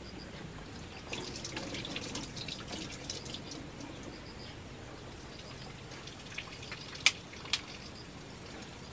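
Faint water from a sink tap trickling and splashing for a couple of seconds, then two sharp taps about half a second apart.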